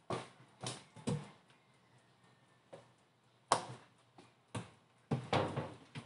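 Irregular plastic knocks and clatter as the dishwasher's white plastic hoses are handled at the faucet and gathered up against the sink and counter. There are a few separate knocks at first, then several in quick succession near the end.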